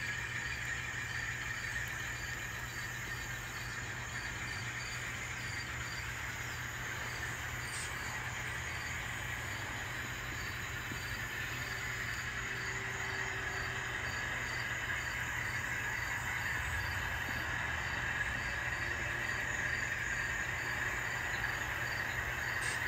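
ESU LokSound decoder in an N scale Alco C420 model locomotive playing a diesel engine sound through the model's small speaker as the locomotive runs. The sound is steady and grows a little louder in the last third.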